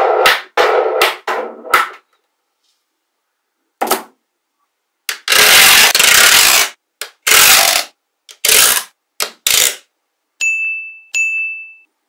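Magnetic balls clicking and clattering as rows of them are laid and snapped onto the model, in separate bursts: a quick run of clicks at first, a longer rattling rush a little past the middle, then two short ringing pings near the end.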